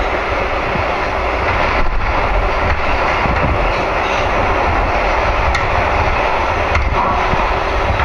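Subway train running, heard from inside the car: a loud, steady rumble and rushing noise of the moving car on the track.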